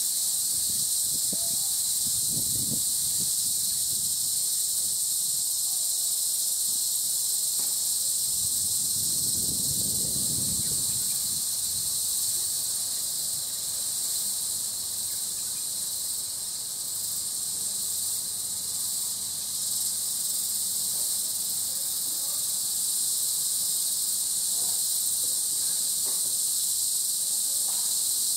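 Insects droning steadily at a high pitch, a dense chorus that does not let up. Low rumbles come twice, about two and ten seconds in.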